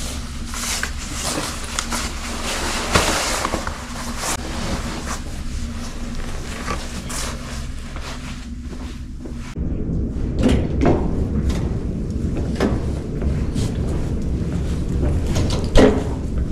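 Rustling and bumping of a heavy backpack and its nylon rain cover as it is handled and hoisted onto the back, over a low steady hum. About two-thirds through, the low hum gets louder and a few knocks and clicks follow, the sharpest near the end.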